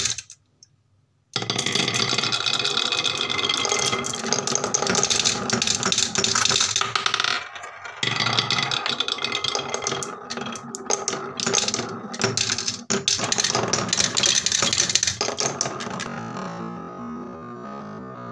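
Background synthesizer music. It drops out to near silence for about the first second, then resumes.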